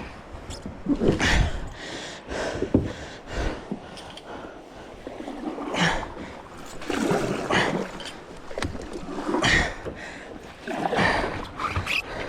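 Kayak paddle strokes dipping and splashing in river water, a swish every second or two.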